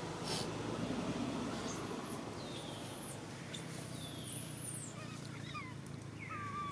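Baby macaque giving short, wavering squeaks, clustered near the end, over a steady low hum.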